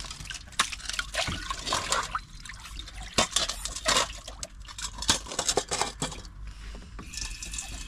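Dirty water poured and splashed out of a stainless steel poultry drinking bowl onto wet ground, with irregular splashes and light clinks of the metal bowl.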